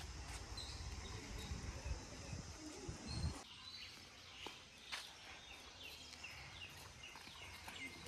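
Small birds chirping and calling, with short repeated chirps that become more frequent near the end. A low rumble fills the first few seconds and stops abruptly.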